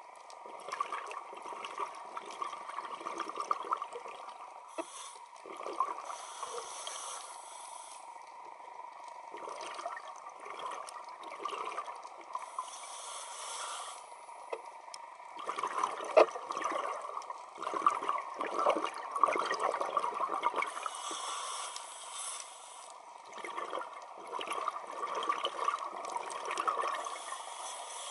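Scuba regulator breathing underwater: hissing inhalations alternating with bursts of exhaled bubbles, the bubbles loudest a little past halfway through.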